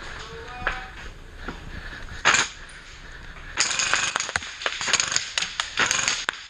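Airsoft gunfire: a few scattered shots, then from about three and a half seconds in a dense run of rapid, irregular sharp clicks as BBs are fired and strike hard surfaces.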